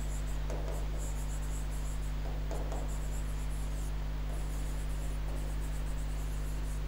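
Stylus writing on an interactive display screen, a few faint soft scratches and taps, over a steady low electrical hum.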